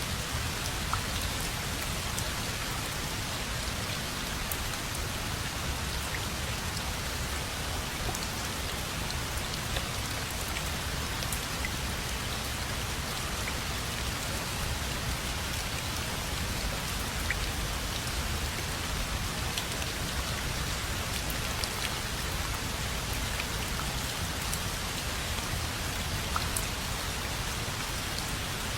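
Steady rainfall, with individual drops ticking on a surface throughout.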